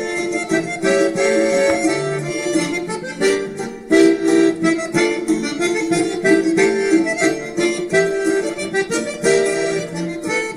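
Instrumental background music: a melody of held notes over a steady rhythm.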